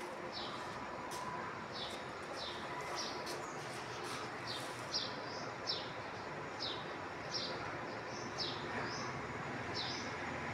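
A bird chirping over and over: short, high, falling chirps, about one or two a second, over a steady background noise.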